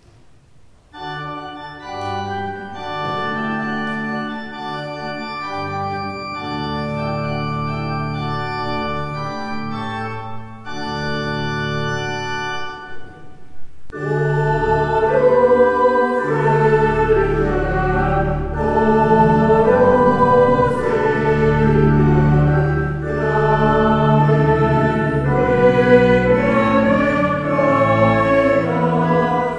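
Church organ playing an introduction of long held chords. About fourteen seconds in, a choir comes in singing a German Christmas carol with the organ.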